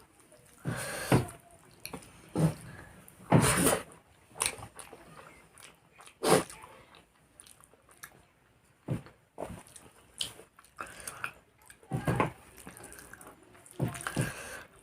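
Close-miked eating sounds: a person chewing rice, with wet mouth noises coming in irregular short bursts.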